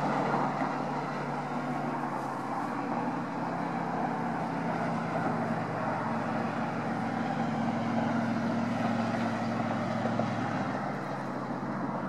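Highway traffic: a steady hum of passing vehicle engines and tyres, swelling between about seven and ten seconds in, then easing off.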